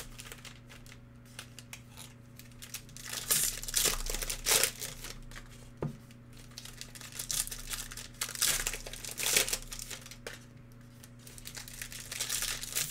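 Foil trading-card pack wrappers crinkling in several bursts as they are handled and torn open.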